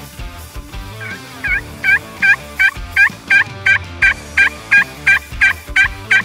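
Sleepy Eye gobble tube call shaken by hand, giving a run of about fifteen short gobbling notes, about three a second, starting about a second in.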